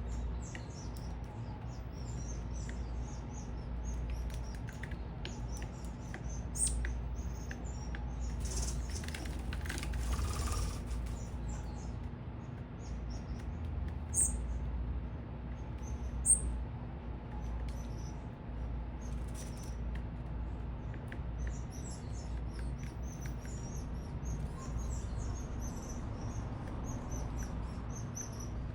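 Many small birds at a feeder chirping rapidly and continuously in short, high notes. There is a brief rush of noise about nine seconds in and a few sharp clicks, over a steady low city rumble.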